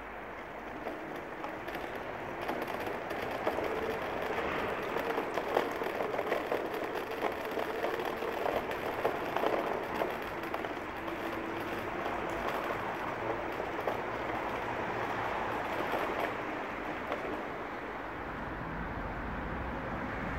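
Self-balancing hoverboard rolling over a bare concrete car-park deck: a steady rumble from the small wheels, with a faint motor hum that wavers a little in pitch and scattered light clicks and knocks.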